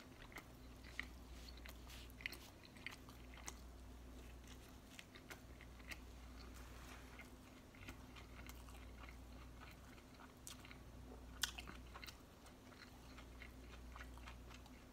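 Close-up chewing of a pulled pork sandwich on a soft bun with coleslaw: quiet wet mouth clicks and smacks scattered throughout, one sharper click a little past the middle, over a faint steady hum.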